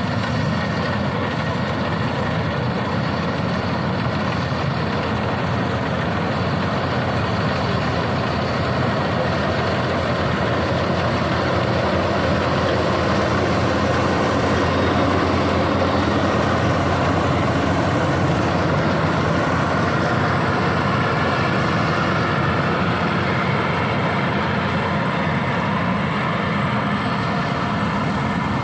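Rice combine harvester running steadily under load, its engine and threshing machinery giving a continuous dense mechanical din with a thin high whine above it. It grows slightly louder around the middle.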